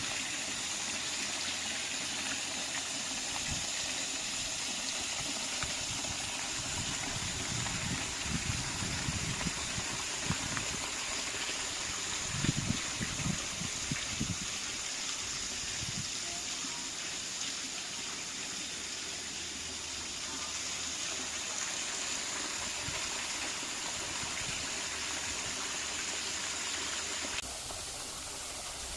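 Waterfall's falling water rushing steadily. Irregular low rumbling thumps come through for several seconds in the first half. The rush drops slightly in level and changes character near the end.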